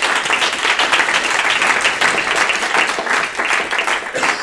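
Audience applauding, a dense steady clapping from many hands.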